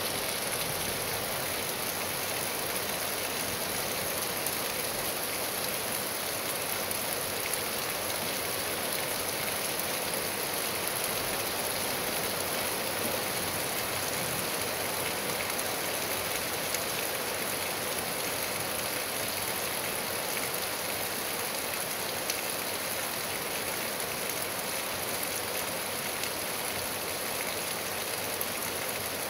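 Steady rain falling on trees and grass: an even hiss dotted with fine drop ticks, unchanging throughout.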